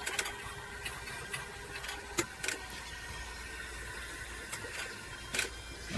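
Electric fuel delivery pump of a Cummins ISC 8.3 diesel switching on with the key and running with a steady whine, feeding the lift pump at about 15 psi. A few sharp clicks sound over it, two near the middle and one near the end.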